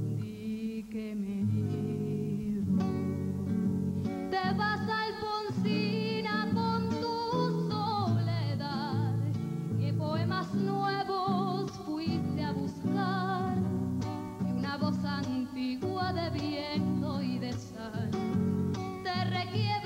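A woman singing with vibrato, accompanied by an acoustic guitar.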